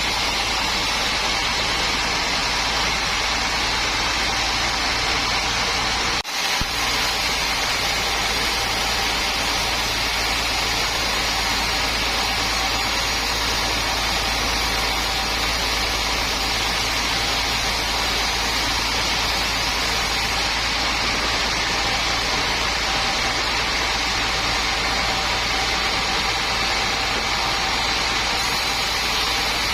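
Sawmill machinery running steadily, a continuous engine-like hum with a steady whine over it, briefly interrupted about six seconds in.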